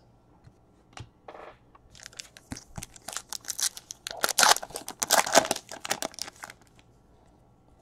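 Foil trading-card pack wrapper being torn open and crinkled by hand: a dense run of crackling rustles starting about two seconds in and stopping about a second before the end.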